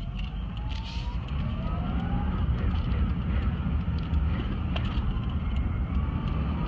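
Honda car's engine and road noise while driving, with a faint whine rising in pitch over the first couple of seconds as it gathers speed. The owner reports that the engine misfires and hesitates under heavy throttle.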